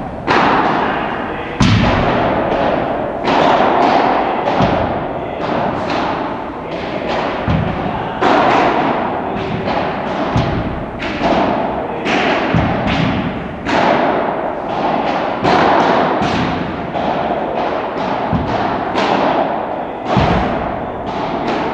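Padel rackets hitting balls in a feeding drill, with balls bouncing on the court: a quick series of knocks about once a second, echoing in a large indoor hall.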